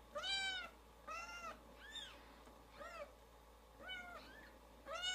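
Newborn kittens mewing: about six short, high-pitched cries, each rising and falling in pitch, roughly one a second.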